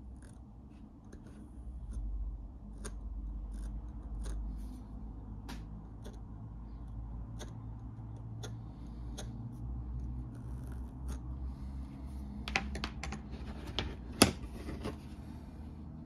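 Hands pressing and working leather around a hard lighter mold with a small hand tool: low rubbing and handling noise with scattered light clicks and taps. A quick run of sharper clicks comes near the end, the loudest about two seconds before it ends.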